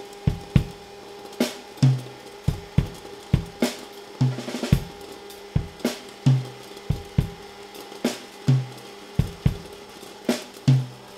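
Drum kit playing a beat, with kick drum thumps, snare hits and cymbal strokes, over a steady faint hum.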